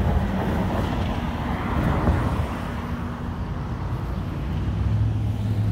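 Outdoor street noise: wind rumbling on a phone microphone over road traffic, with a steady low hum coming in near the end.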